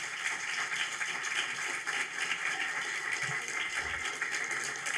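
Audience applauding steadily after a poetry reading.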